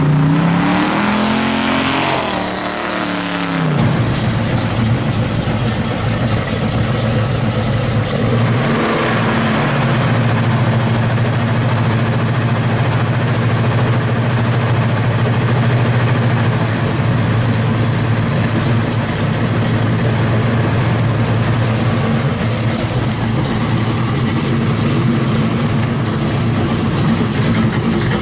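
1969 Chevrolet Chevelle SS's V8 driving past under power, its pitch rising and falling; after a cut, the same V8 idles steadily, with one short rev about nine seconds in.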